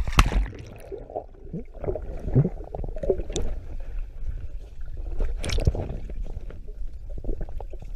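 Swimming-pool water heard through a camera dunked under the surface: a splash as it goes in, then muffled underwater sloshing and gurgling, with another splash about five and a half seconds in.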